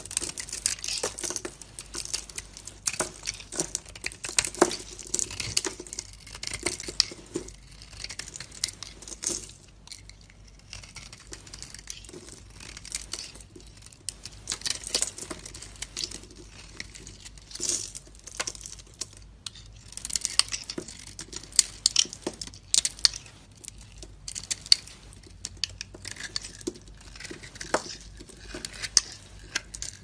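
A knife blade cutting and shaving thin layers off a bar of dry soap: dense crisp crackling and scraping as curls and flakes break away, with a quieter stretch about ten seconds in.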